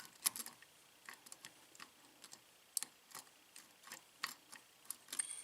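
Faint, irregular metallic clicks and ticks of a lock pick working the pins of a Marks five-pin pin-tumbler lock under tension, during single-pin picking.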